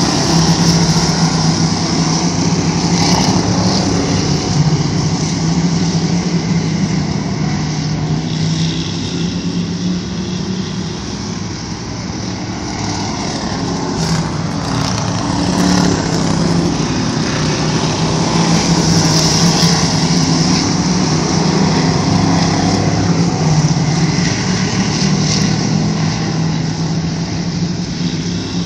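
Several full-bodied dirt-track race cars running laps on a clay oval, their engines loud and steady. The sound swells as the cars pass close near the start and again about two-thirds of the way through, and eases off in between.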